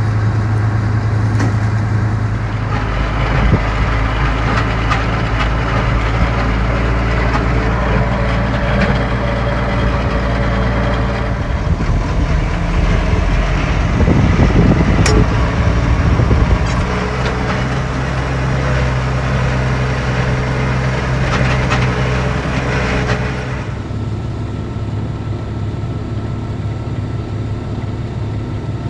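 Combine harvester running steadily while harvesting corn. About 23 seconds in, the higher machinery noise drops away and the low engine note carries on.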